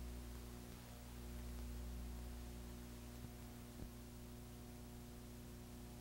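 Low steady electrical hum with faint hiss, the background noise of an old analog videotape transfer, with a faint click a little past three seconds in and another just before four.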